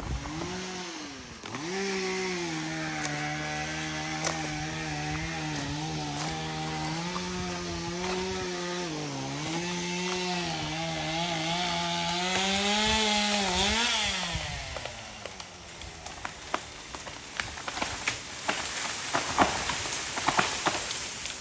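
Two-stroke chainsaw cutting wood, its pitch dipping repeatedly as the chain bogs under load and recovering. It revs up briefly about two-thirds through, then winds down and stops. A scatter of sharp clicks and snaps follows.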